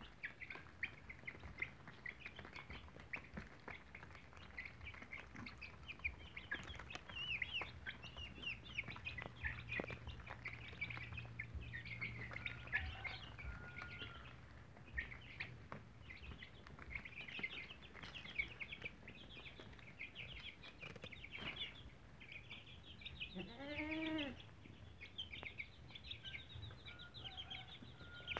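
A brood of chicks peeping constantly in short, high chirps while pecking grain, with scattered small taps of beaks on the ground. About 24 s in, an Aseel hen gives a lower, longer call of several rising and falling notes.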